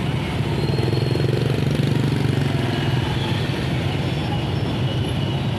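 Motorcycle engine of a Philippine tricycle running, its pitch rising and then easing back down between about one and three seconds in.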